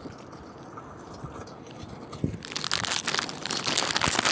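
Crackling, crunching noise of walking with a hand-held phone over gritty, sandy ground, quiet at first and then much louder and denser about halfway in, with a few heavier knocks among the crackle.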